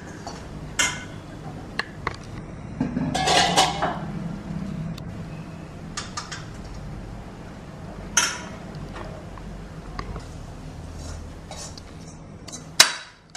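Steel spatula scraping and clinking against a steel kadai while fried grated coconut is stirred, with scattered metal clicks. There is a sharp metal clank near the end, the loudest sound, as the kadai is tipped and scraped out into the other pan.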